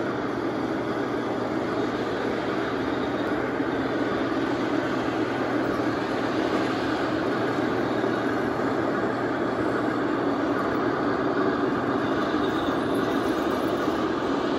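1/16 Tamiya Jagdpanzer IV radio-controlled tank driving, a steady mechanical running sound.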